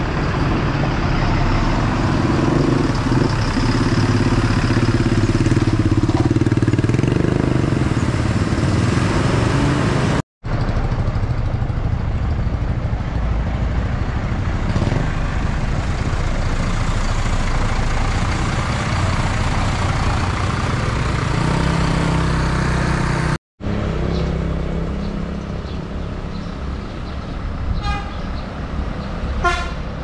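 Diesel tour buses running close by as they pull away and drive past, with blasts of a multi-note telolet air horn. The sound is in three sections, each broken off by a brief dead silence.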